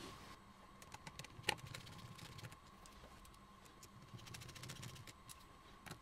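Faint light clicks and ticks of a small screwdriver turning and seating tiny screws in a 13" Retina MacBook Pro's aluminium case, with one sharper click about one and a half seconds in and a quick run of ticks near the end.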